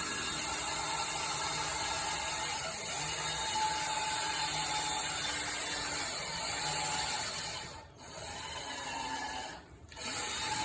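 Power drill running steadily, its trigger held, stopping briefly twice near the end before starting again.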